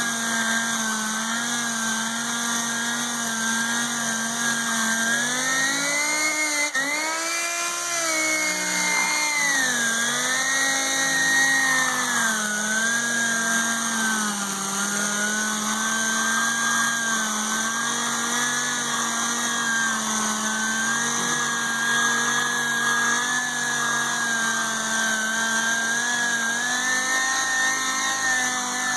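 Dual-action (DA) sander running steadily as it sands a motorcycle windshield with 1000-grit paper. Its whine rises in pitch about six seconds in, falls back over the next few seconds, dips once more later and then settles.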